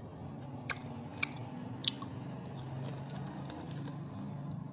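Close-up eating sounds of a person biting and chewing roast pig (lechon) with its skin, with a few sharp crunches in the first two seconds and another later on.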